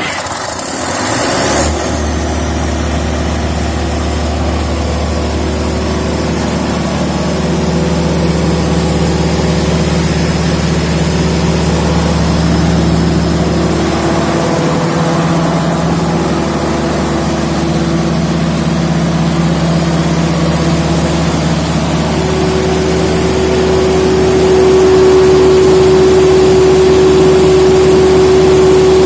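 Large diesel engine of a 600 kVA generator set running just after starting, with a loud rush in the first couple of seconds that settles into a steady run. A steady whine grows louder about three-quarters of the way through as the overall sound gets slightly louder.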